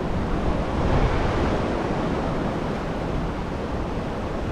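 Sea waves washing onto a sandy beach, mixed with wind blowing on the microphone: a steady rush that swells slightly about a second in.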